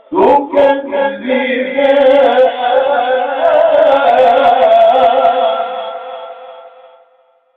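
A man reciting the Quran in a melodic chanted style, drawing out one long ornamented phrase with a wavering pitch that fades out about seven seconds in.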